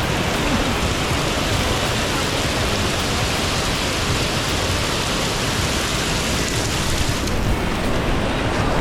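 Hail and rain pouring down in a dense, steady hiss of hailstones and drops striking surfaces. A little after seven seconds in, the sharpest top of the hiss falls away.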